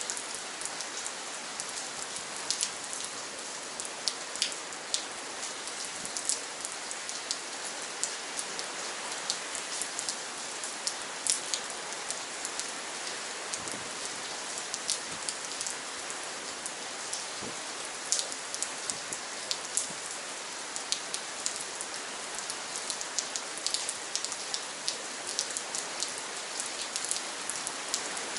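Steady rain falling, a dense hiss with many close, sharp drips and drop hits scattered irregularly throughout.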